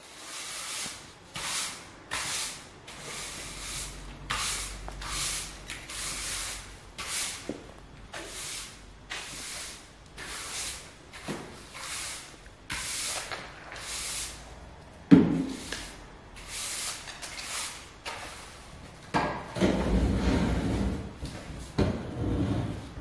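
Bristle broom sweeping a wooden parquet floor in short, quick strokes, about one and a half a second, with one loud knock about fifteen seconds in. Near the end the strokes give way to heavier knocking and scraping as an armchair is moved on the floor.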